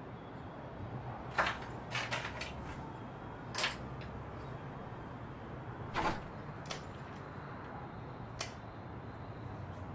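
Metal clicks and rattles of a padlock being unlocked and taken off a door's hasp and bolt, a few sharp clinks spread over several seconds with pauses between them.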